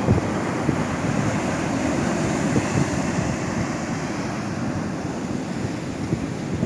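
Wind buffeting the microphone, with the steady rush of surf behind it.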